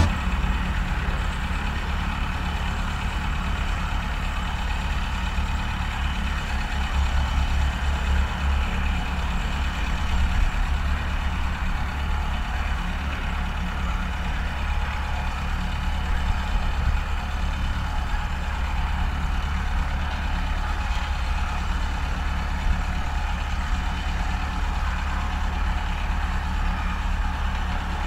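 Kubota compact tractor's diesel engine running steadily at low speed while it pulls a row implement slowly across a field.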